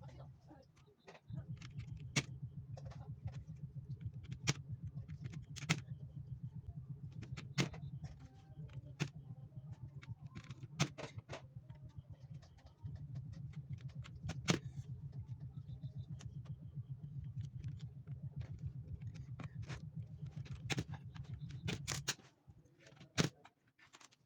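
Computer keyboard keys clicking and clattering as they are cleaned, over a steady low hum that breaks off briefly about halfway and stops near the end.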